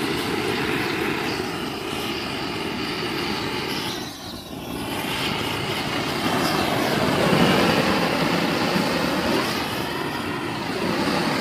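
Powered blower running steadily, blasting air onto a campfire to get it going. There is a short dip in the sound about four seconds in.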